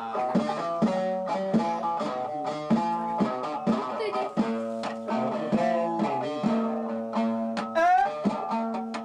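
Music: a plucked string instrument playing quick, repeating melodic figures over a steady low note.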